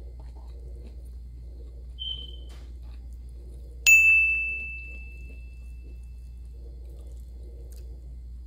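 Subscribe-button animation sound effect: a short high blip, then about two seconds later a bright bell ding that rings out and fades over about two seconds.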